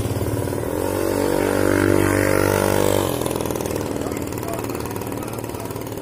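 A motor vehicle's engine running close by, growing louder about a second in and then dropping off sharply about three seconds in.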